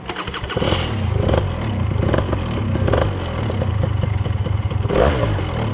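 An engine runs loudly and steadily, picking up sharply about half a second in, with some clatter over it.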